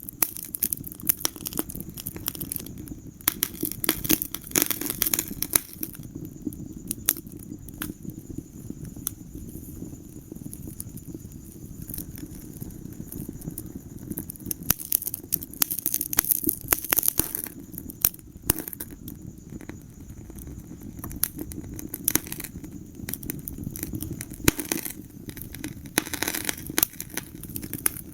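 Wood fire crackling in a fireplace: many irregular pops and snaps over a steady low rumble of the flames. The snapping comes in busier spells near the start, in the middle and near the end.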